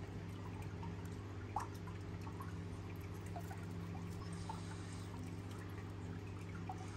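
Steady low electrical hum with faint, scattered small ticks, one slightly louder about a second and a half in.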